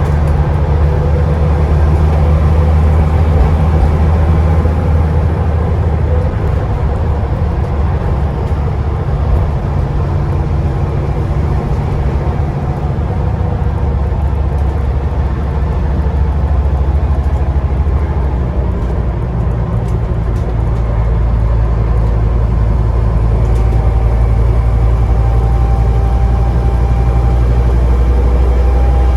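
Scania Enviro 400 double-decker bus heard from inside the lower deck while driving, its diesel engine running with a steady low drone. About 19 s in, the engine note changes to a lower, steadier hum, and near the end a thin steady whine comes in over it.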